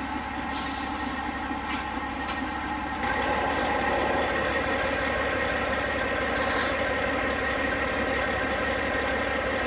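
Large engine running steadily at idle, a deep even drone with a few light clicks in the first couple of seconds; it turns louder and brighter about three seconds in.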